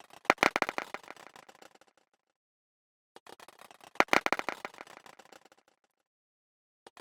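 Small objects dropped onto a hard surface, twice: each time a few light ticks, then a dense scatter of clicking impacts as the pieces land, bouncing and rattling to a stop over about two seconds. A third drop begins at the very end.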